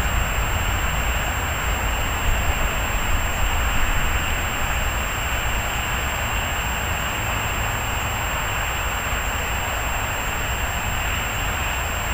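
Steady background noise: an even hiss with a low rumble beneath it, with no distinct events.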